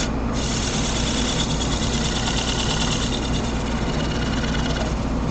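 Wood lathe running steadily while the finish on the spinning wood is buffed out, a hiss of rubbing that starts just after the beginning and stops near the end.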